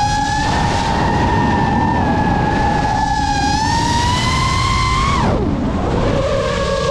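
FPV quadcopter's motors and propellers whining at high speed over a steady rushing noise. The pitch holds, climbs a little, then drops steeply about five seconds in as the motors slow, and rises again near the end as they spin back up.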